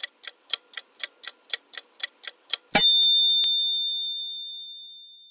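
Timer ticking, about four ticks a second, then a single bright bell ding a little under three seconds in that rings out and fades over about two and a half seconds.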